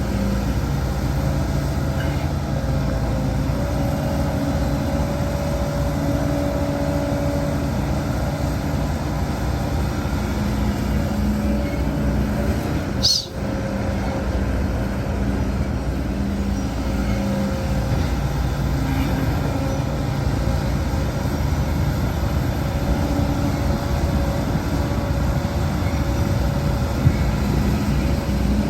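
Heavy diesel construction machinery (excavator and dump trucks) running steadily under load, with a brief dip and a short high squeal about halfway through.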